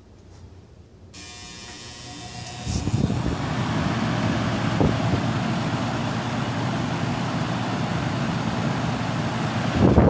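Atlas Aire 16-inch box fan with a Torrington blade switched on about a second in: a motor hum starts suddenly, then the rush of air builds over the next two seconds as the blade comes up to speed. It then settles into a steady rush, moving a lot of air.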